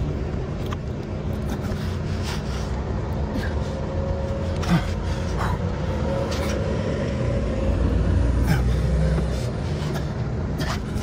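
Diesel semi-truck engine idling steadily, with scattered short clicks and knocks from hand work on the tire.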